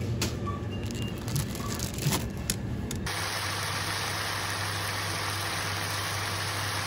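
Plastic tortilla bag crinkling as it is handled, with shop background noise. About three seconds in, it cuts to a steady sizzle of pork and vegetables frying in a pan over a low steady hum.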